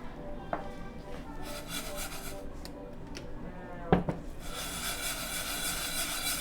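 Cooking sounds at a stove: scraping and rubbing, a single sharp knock about four seconds in, then a steady hiss.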